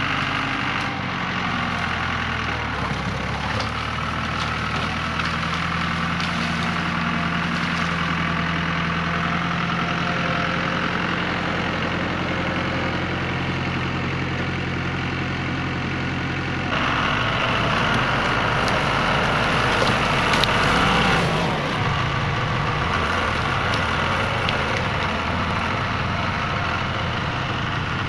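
Engine of an old Case IH loader tractor running steadily as it works in heavy brush. About 17 seconds in, the engine note changes and grows louder for a few seconds, then settles again.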